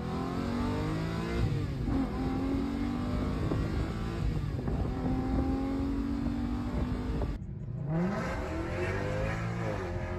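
A car engine revving and accelerating, its pitch climbing and falling several times, with a short break about seven and a half seconds in.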